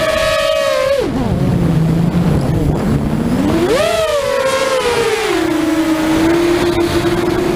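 5-inch FPV racing quadcopter's brushless motors whining. The whine holds a steady high pitch, drops sharply to a low pitch about a second in as the throttle comes off, swells back up near four seconds, then settles at a lower steady pitch.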